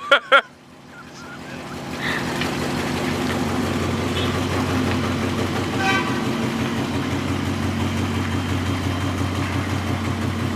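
Dodge Charger engine and exhaust running with a steady low drone that builds over the first two seconds and then holds. The exhaust is quiet. A short high chirp is heard about six seconds in.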